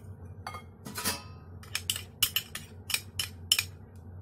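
Wire whisk and ceramic cup clinking against a ceramic mixing bowl: a ringing clink about a second in, then a quick run of sharp clicks.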